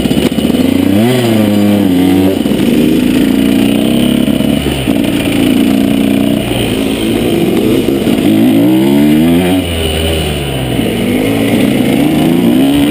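The single-cylinder two-stroke engine of a 2012 KTM 125 SX motocross bike, heard from on board, revving hard as it is ridden. The revs climb, hold and drop several times: a climb about a second in, a drop near the middle, another climb and drop a few seconds later, and a new climb near the end.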